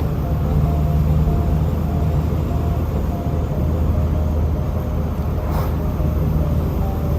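Car driving, heard from inside: a steady low engine and road drone.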